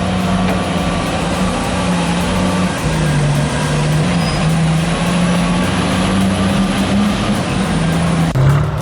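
Heavy diesel engine of large earthmoving machinery running under load, its pitch stepping up and down. The sound changes abruptly near the end.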